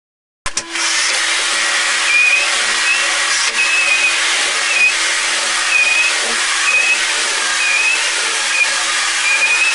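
Electric sanding machine running on a wooden table top: a steady motor hum with a short, wavering high squeal about once a second as the sander is worked over the surface. It starts abruptly about half a second in.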